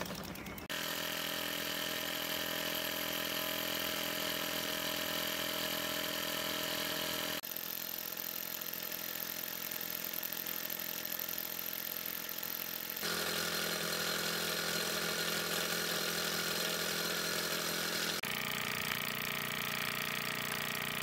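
Mamod model steam engines running steadily at speed, each with its oscillating brass cylinder driving a spinning flywheel: first a Mamod MM2, then a Mamod/Meccano MEC1. The sound changes abruptly about 7, 13 and 18 seconds in as one running engine gives way to another.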